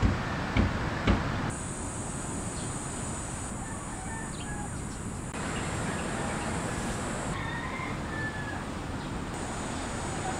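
Outdoor ambience: a steady background hiss with faint bird chirps, after a sharp knock at the very start.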